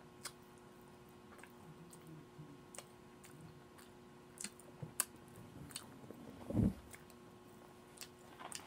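A woman chewing a mouthful of chili cheese omelette and buttered toast, with scattered small clicks and one louder short low sound about six and a half seconds in.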